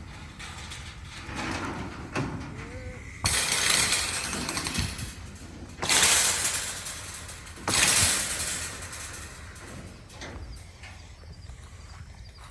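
Wild hogs thrashing in a steel trap and trailer: three loud crashes with rattling metal, roughly two seconds apart, over hooves scuffling on metal.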